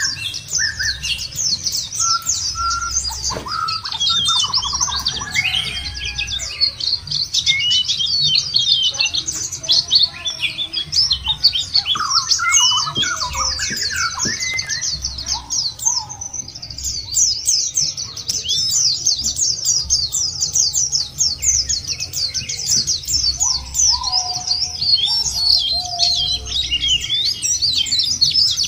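White-eyes (pleci) twittering in a fast, unbroken high chatter, with scattered lower whistled notes mixed in.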